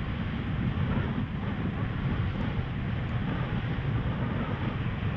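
Steady wind noise buffeting a GoPro's microphone while riding a wingfoil board, a continuous low rumble with hiss above it.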